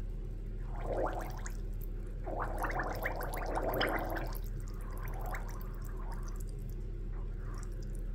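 Bath water bubbling and gurgling in bursts, about a second in and again from about two to four seconds in, with weaker gurgles later, over a steady low hum.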